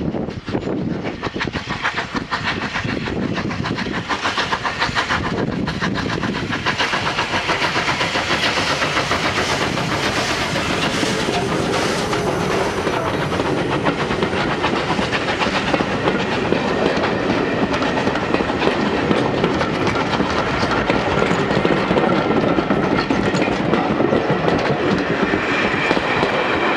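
Bulleid Battle of Britain class three-cylinder steam locomotive 34070 Manston working a train away from a station, its exhaust beats growing louder as it comes up to and passes close by. Its coaches then roll past with wheels clicking over the rail joints.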